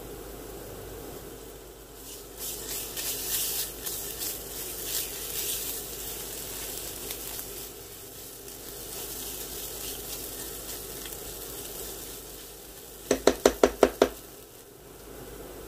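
Diced onions and tomato paste sizzling in a nonstick frying pan as a silicone spatula stirs them, the crackle loudest for a few seconds early in the stir. Near the end come six quick knocks in a row.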